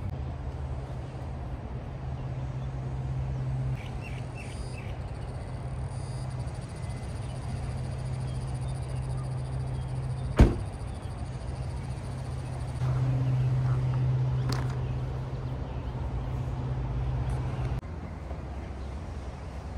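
A minivan's front door shut once with a sharp knock about halfway through, over a steady low hum. A lighter click follows a few seconds later.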